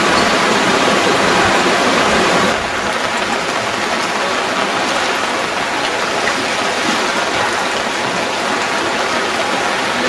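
Floodwater rushing fast down a street, a steady, dense rushing noise that drops a little in level about two and a half seconds in.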